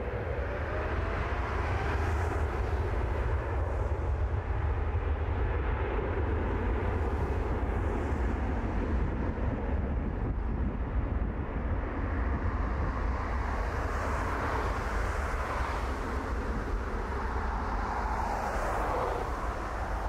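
Jet engines of an Airbus A380 airliner running with a steady, loud low rumble and a broad roar above it.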